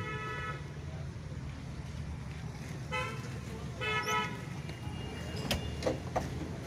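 Mahindra Supro van's engine running steadily with a low rumble, while a vehicle horn sounds two short toots, about three and about four seconds in. A few sharp knocks come near the end.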